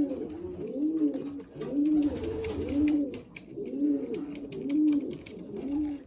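Racing pigeon cooing over and over, a low coo that rises and falls about once a second.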